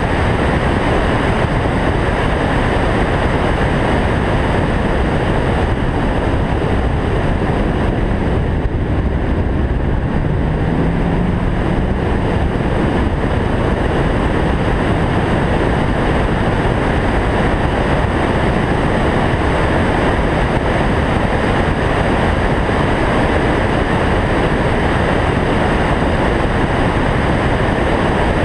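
Steady rush of wind and road noise from a car driving at speed. A faint rising hum comes in near the middle.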